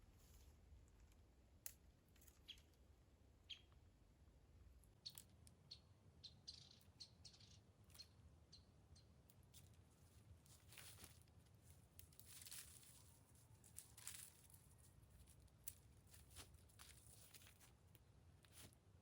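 Near silence with faint, scattered small clicks and rustles.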